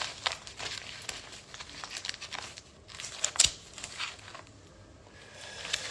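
A stack of paper banknotes being handled and flipped through, giving irregular crisp rustles and crinkles of paper.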